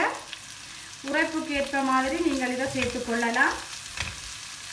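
Onion, green capsicum and chili flakes sizzling in hot oil in a non-stick wok, stirred with a wooden spoon. A voice rises over it for a couple of seconds in the middle, louder than the frying.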